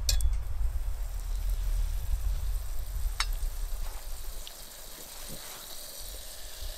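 A steel knife blade clinks against a metal cooking pot as food is stirred over a campfire: one short ring at the start and another about three seconds in. Under it is a soft sizzle and crackle from the pot and fire, with a low rumble through the first few seconds.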